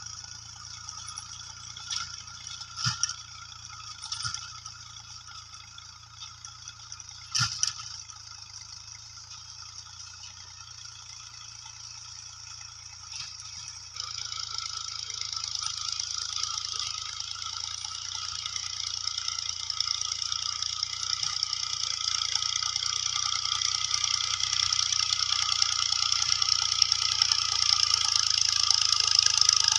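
Fiat farm tractor's diesel engine running under load, with a rattle, heard at a distance. A few sharp knocks come in the first eight seconds, and from about halfway it grows steadily louder as the tractor comes closer.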